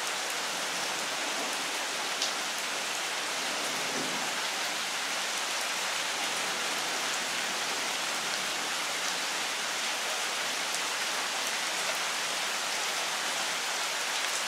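Steady rain falling on the leaves of a longan tree, with one sharper drop tick about two seconds in.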